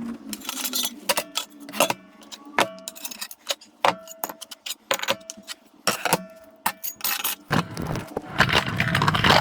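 A run of sharp clicks and clinks, some with short metallic ringing, then a rush of noise that builds over the last two seconds.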